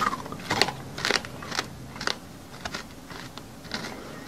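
Close-up crunchy chewing, as of gritty, hard food being bitten and ground in the mouth: sharp crunches about twice a second that grow fainter after about two seconds.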